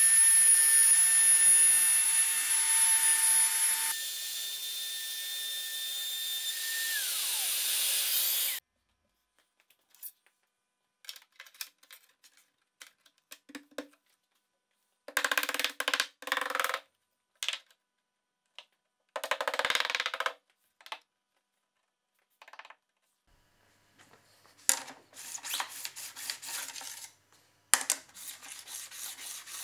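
Compact router with a straight bit running and cutting a groove in the plywood tabletop, a steady high whine with dust extraction; about four seconds in the sound changes, the whine falls as the motor winds down, and it cuts off sharply. After that come scattered short scrapes and knocks of aluminium rail profiles being handled and set into the grooves.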